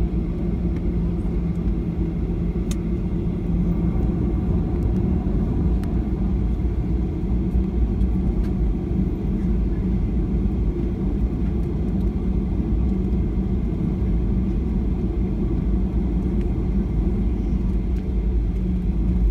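Steady low rumble of a moving vehicle heard from inside its cabin, with a constant low hum.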